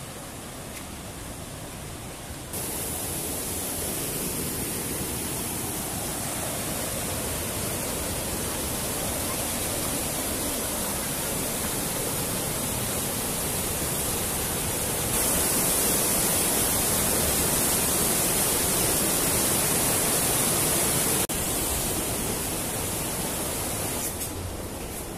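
Gorge river rapids rushing over rocks: a steady rushing noise that gets louder in sudden steps about 2.5 and 15 seconds in, drops back about 21 seconds in, and softens near the end.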